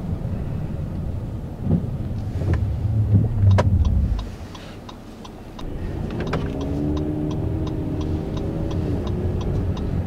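In-cabin sound of a 2017 Honda Ridgeline's 3.5-litre V6 truck driving on snow: a low rumble of tyres and road that drops away about four seconds in as the truck slows. About six seconds in the engine note comes up and pulls steadily, rising slightly and then falling, over a regular light ticking about three times a second.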